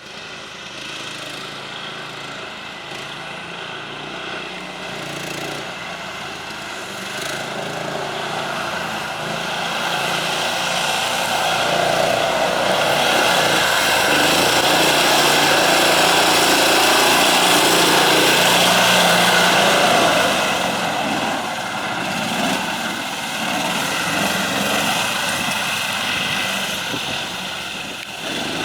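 A small engine running steadily, with a propeller-like drone. It grows louder through the first two-thirds and eases off after about twenty seconds.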